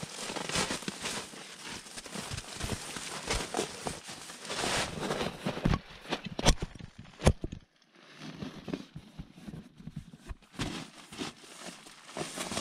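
Rustling and crinkling of tent fabric and a plastic groundsheet as a foam sleeping pad is handled and laid out, with scattered soft knocks and two sharp knocks about six and a half and seven seconds in.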